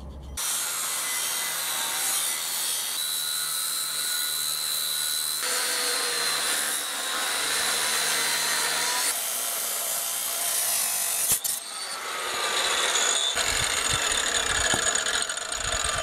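Angle grinder cutting through a thick solid steel round bar, about 80–90 mm across: a steady high grinding whine with a hiss of sparks. The sound changes abruptly several times and breaks off briefly about eleven seconds in.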